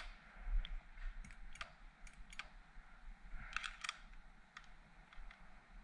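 Light, irregular metal clicks and taps of small parts and hand tools while a motorcycle's handlebar lever mount is being fitted and hand-tightened, with a short quick run of clicks about three and a half seconds in.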